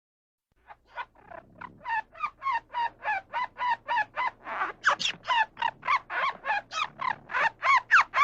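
A bird giving a rapid series of harsh, repeated calls, about three a second, starting about a second in and growing louder.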